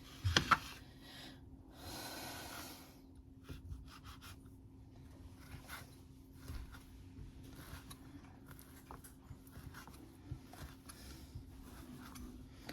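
Knife cutting deli meats (ham, turkey and salami) on a cutting board: scattered quiet slicing strokes, scrapes and taps, with a sharper knock about half a second in. A faint steady hum runs underneath.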